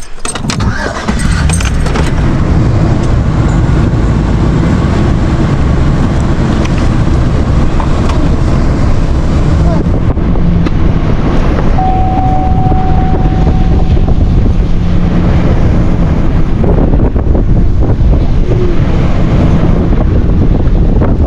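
Truck driving, with steady engine and road noise and wind buffeting the microphone; a short steady tone sounds for about two seconds near the middle.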